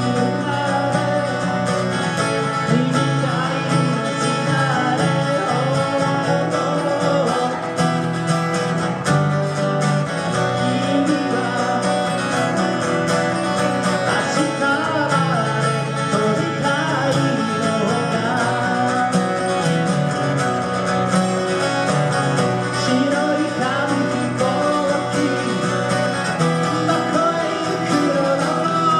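Two acoustic guitars playing a song live, with a melody line moving over steady chords.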